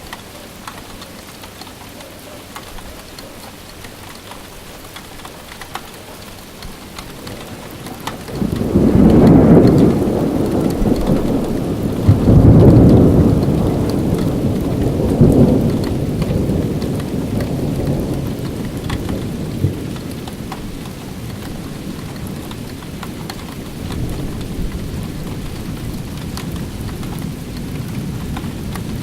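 Steady rain falling, with a long roll of thunder coming in about a third of the way through: a low rumble that swells in three loud peaks over roughly ten seconds, then fades back to the rain.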